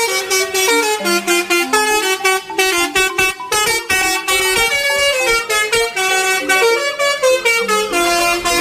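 Telolet bus horn, a multi-tone horn, playing a quick tune of short notes that step up and down in pitch.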